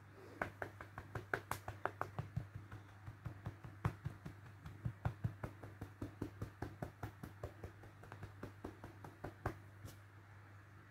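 A relaxed, cupped hand rapidly smacking a heavy cat's rump through its fur: quick rhythmic pats, several a second, stopping about nine and a half seconds in.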